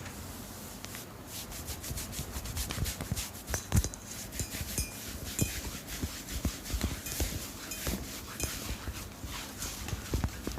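Hands rubbing and kneading heavily oiled skin, with many short, irregular wet clicks and smacks; the loudest comes about four seconds in.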